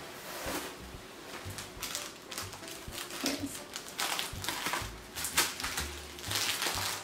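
Plastic packaging crinkling and rustling as a bagged pair of socks is handled, in quick irregular crackles that grow louder and denser about halfway through.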